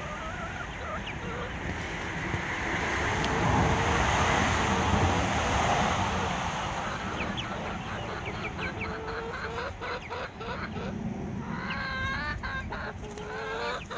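Chickens clucking, sparse at first and getting busier through the second half, with a quick run of calls near the end. A steady rushing noise fills the first half.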